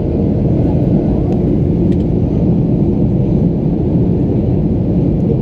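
Steady cabin rumble of a Boeing 737-800 in flight: the CFM56-7B engines and the airflow over the fuselage, heard inside the cabin as an even, low rumble.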